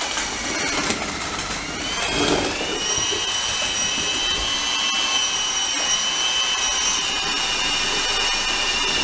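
Keyang D-23 electric mortar mixer running steadily with a high motor whine while stirring dry pre-mixed mortar. The whine rises in pitch about two seconds in, then holds.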